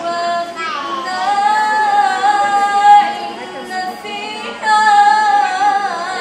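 A girl's solo voice reciting the Quran in melodic chant (tajwid), with long held notes and ornamented pitch turns. The phrase breaks off about four seconds in and a new one begins with a breath.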